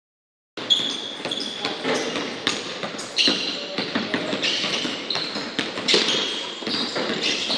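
Basketballs bouncing on a hardwood gym floor, with short high shoe squeaks, echoing in a large hall. Starts about half a second in.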